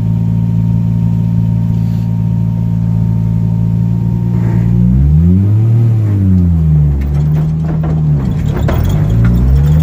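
Turbocharged 1JZ inline-six engine through a Magnaflow muffler, running at a steady engine speed for about five seconds. It then revs up and back down, holds, dips again and starts climbing near the end.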